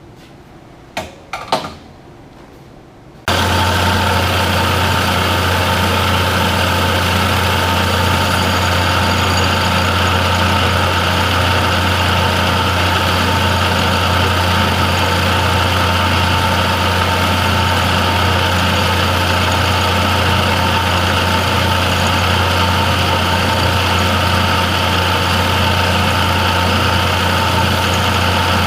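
A few light clicks, then about three seconds in a shop machine starts abruptly and runs steadily, with a strong low hum and an even hiss.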